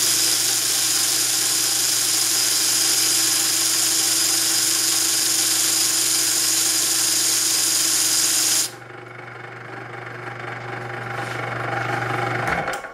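Electric grinding tool running against a Zippo lighter's flywheel and flint, a loud steady grinding hiss over a motor hum. About two-thirds of the way in the grinding stops abruptly and the motor runs on alone with a hum, then shuts off near the end.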